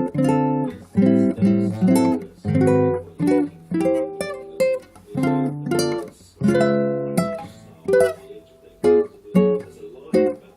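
Guitar strummed in chords, about one or two strokes a second, each chord left to ring before the next.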